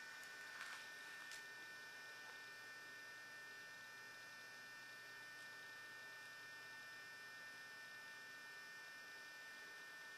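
Near silence: a faint steady electrical hum with a high whine, and two faint brief noises in the first second and a half.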